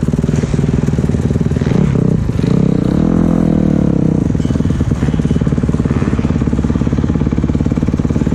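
Motocross bike engine running, with one rise in revs about two and a half seconds in that falls back about a second and a half later.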